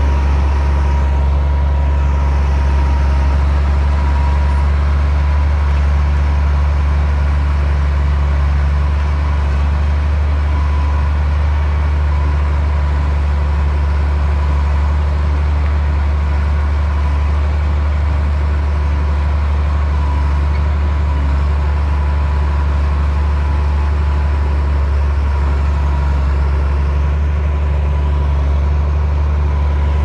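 Komatsu D60P bulldozer's diesel engine running steadily at an even pace, a deep drone with a thin steady whine above it.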